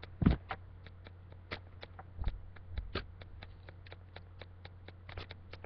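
Handling noise: a run of small sharp clicks and taps as a CD and its packaging are handled close to the microphone, with a louder thump near the start, over a steady low hum.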